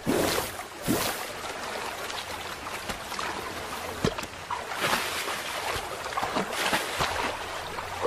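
Shallow river running over stones, a steady rush of water with scattered short splashes.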